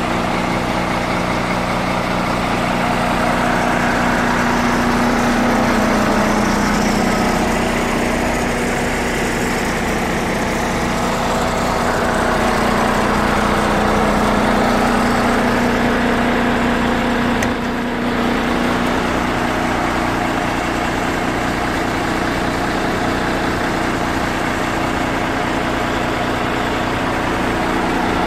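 M.A.N. 19.463 tractor unit's diesel engine idling steadily, a little louder as the exhaust silencer outlet comes close.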